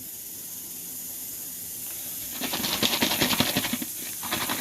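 Freshly fried french fries being tossed with salt in a bowl: a fast, irregular rattling and scraping that starts about halfway through, over a steady hiss.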